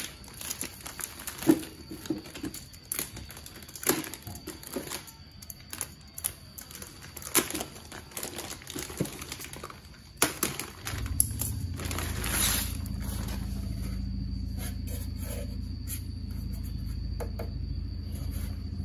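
Clear plastic bag crinkling and rustling, with scattered clicks and taps, as a rack-mount router is pulled out of its wrapping. From about 11 seconds in, a steady low hum sets in underneath and carries on.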